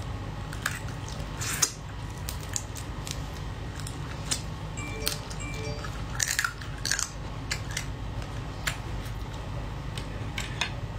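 Mouth sounds of eating soy-marinated female crab by hand: irregular wet smacks, sucks and crunchy clicks as meat and roe are pulled from the shell, the loudest about one and a half seconds in and a cluster near the middle.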